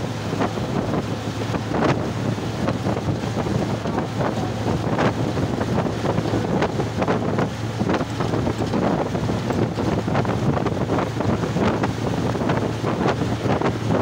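Wind buffeting the microphone of a phone filming from a moving bus, full of short gusty crackles, over a steady low drone from the bus and its tyres on the road.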